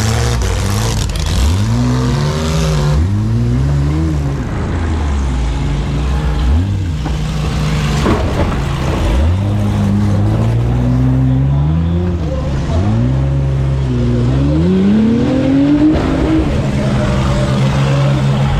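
A demolition-derby van's engine revving hard again and again, its pitch climbing with each burst of throttle and dropping back, heard from inside the van.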